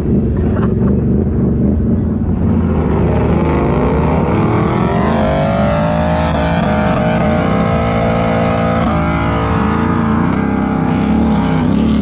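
Chevrolet Silverado pickup's engine revving, climbing steadily in pitch and holding high while the rear tyre spins in loose sand; the engine note wavers up and down near the end.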